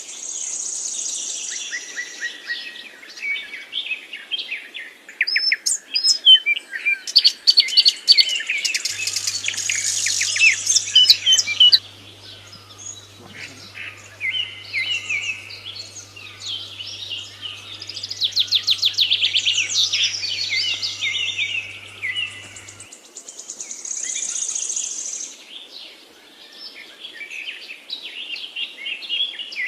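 Several birds chirping and twittering at once: a dense mix of quick high calls and trills that swells and thins out several times. A faint low steady hum runs under the middle stretch.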